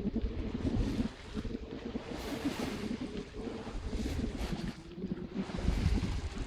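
Wind buffeting the microphone and water rushing along the hull of a small sailing boat under way, rising and falling in gusts, with a faint steady hum underneath.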